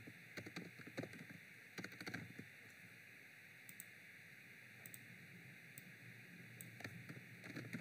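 Faint computer keyboard typing and mouse clicks, a scatter of short light clicks over a steady low hiss.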